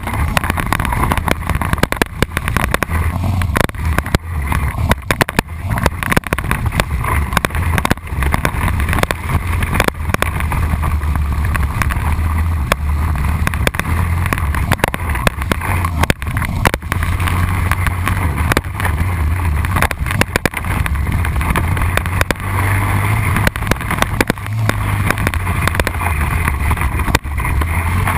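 Honda Rincon 680 ATV's single-cylinder four-stroke engine running under way, its revs rising and falling, with frequent sharp knocks through the run.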